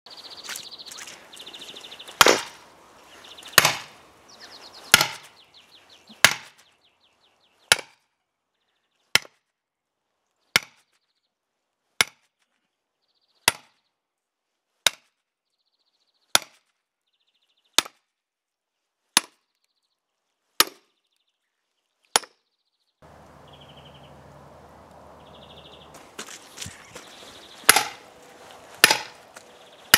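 Sledgehammer striking a steel splitting wedge driven into a spruce log, a steady run of sharp single blows about one every second and a half. The blows stop for a few seconds near the end, then resume.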